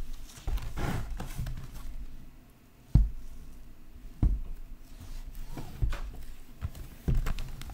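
Handling noise from a large, heavy sealed trading-card box being held up and shifted about: rustling and dull knocks, with three sharper thumps about three, four and seven seconds in.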